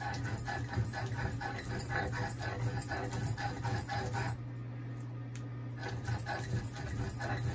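Stone roller grinding a fermented dried-fish and chili paste on a stone slab (shil-pata): rhythmic scraping strokes, about three to four a second. They pause for a second or so past the middle, then start again. A steady low hum runs underneath.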